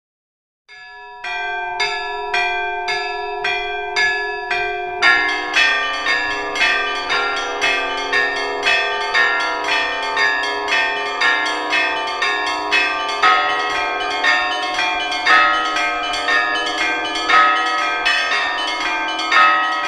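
Church bells ringing: after a moment of silence a few higher bells strike in a quick pattern, and from about five seconds in lower, heavier bells join for a full peal with a steady beat of strokes.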